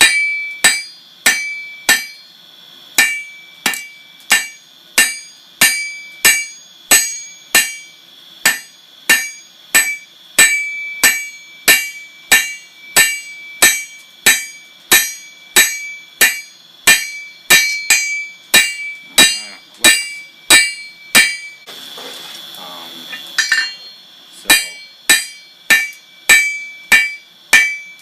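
Hand hammer striking hot O1 tool steel on an anvil at about one and a half blows a second, each blow followed by a bright ring, as the striker is drawn out and thinned. Near the end the blows stop for about two seconds, leaving a steady hiss, then the hammering resumes.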